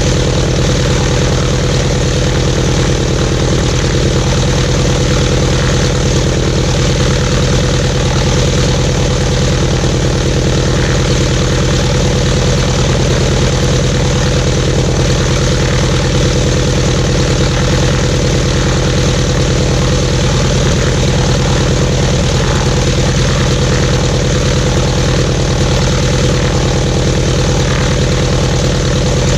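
Jacobs R-755-B2 seven-cylinder radial engine of a Cessna 195B, with its propeller turning, idling steadily at an even speed.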